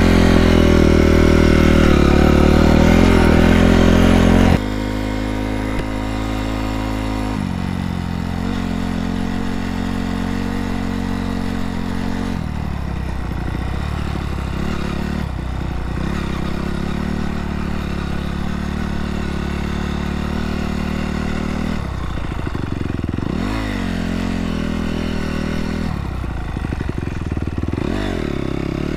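Honda CRF250R single-cylinder four-stroke dirt bike engine running as the bike is ridden. The engine is louder for the first few seconds, then drops back and runs steadily, its pitch dipping and climbing again several times as the throttle changes.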